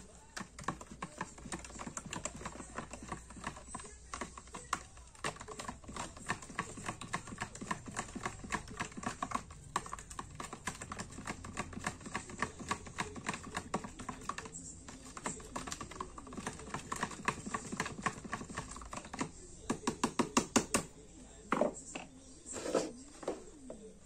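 A screwdriver stirring hot detergent water in a plastic tub, its shaft clicking and tapping rapidly against the plastic sides while the soaking solution for loosening threadlocker is mixed. A faster, louder run of clicks comes about twenty seconds in, followed by a few knocks as the tub is handled.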